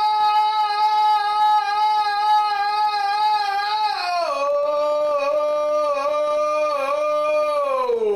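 A singer's voice holding one long high note for about four seconds, then sliding down to a lower note with a slight waver, and stepping down again near the end.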